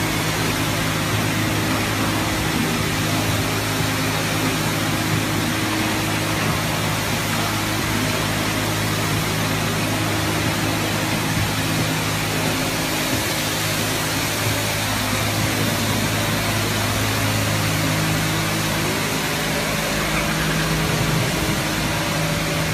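Leisuwash 360 touchless car wash machine spraying a car with high-pressure water: a steady hiss of spray over a continuous low machine hum.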